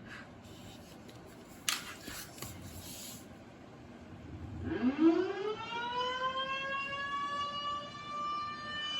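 RM 130 siren starting its noon test: after a few seconds of background noise and a sharp click, it winds up about halfway in, its pitch rising quickly and then levelling into a steady wail.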